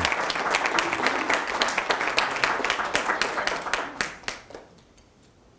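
Audience applauding with many individual hand claps, dying away about four and a half seconds in.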